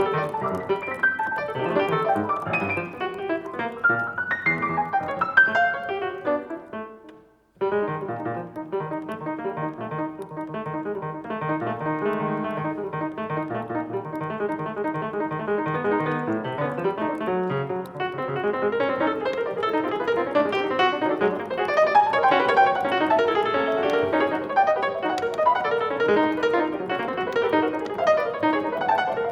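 Solo piano playing dense, quick runs of notes and chords. It breaks off for a moment about seven seconds in, then resumes with fuller, more sustained chords that grow louder toward the end.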